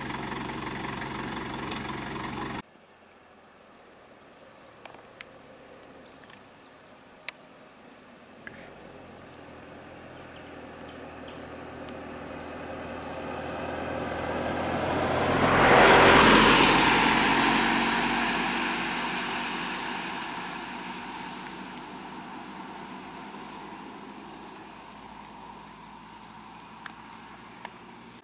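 A steady high insect drone, crickets or cicadas, runs throughout. A vehicle engine idles and cuts off abruptly a couple of seconds in. A vehicle then passes, growing louder to a peak about halfway and fading away, and a few short high chirps come near the end.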